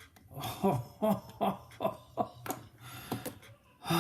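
A man's excited hooting cries, about six quick calls in a row, each falling in pitch, in delight at a padlock finally picked open.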